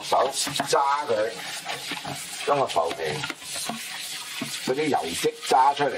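Kitchen tap running steadily onto a plastic strainer in a steel sink, with hands rinsing and squeezing soaked puffed pork skin under the stream.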